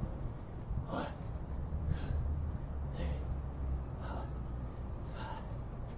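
A man breathing hard during bodyweight squats, a sharp breath out about once a second in time with the reps, winded from exertion. A steady low rumble runs underneath.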